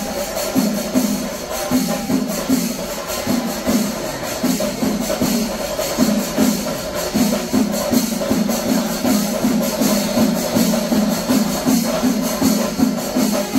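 Chenda melam: massed chenda drums and ilathalam hand cymbals playing a dense, even, continuous rhythm.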